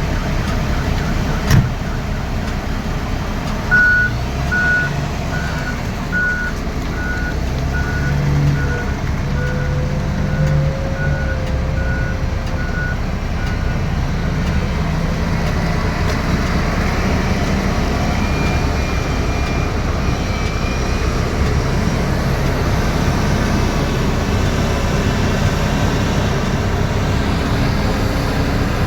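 Wheel loader's diesel engine running steadily under work, with its reversing alarm beeping about once every three quarters of a second for some ten seconds. A single sharp knock sounds about a second and a half in.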